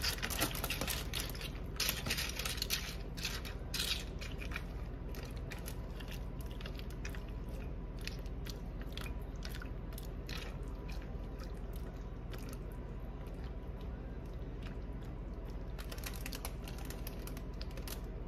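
A silicone spatula pushing dry boxed potato slices around a glass baking dish of sauce: scattered light clicks and crunchy scrapes, thickest in the first few seconds, over a steady low hum.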